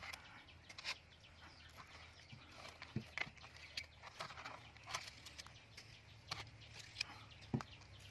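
Someone eating with their mouth close to the microphone: faint, irregular wet smacks and crisp clicks of chewing, coming every half second to a second.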